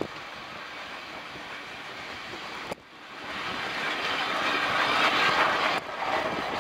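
0-6-0 saddle-tank steam locomotive hauling coaches past at close range, its running noise growing louder as it comes alongside. The sound jumps abruptly about three seconds in and again near the end, at edits.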